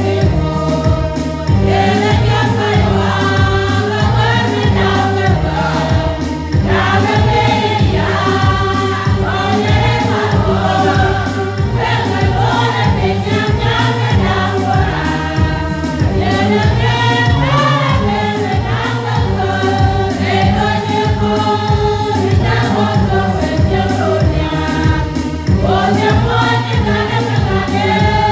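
Church choir singing a gospel song together over a steady beat and bass accompaniment.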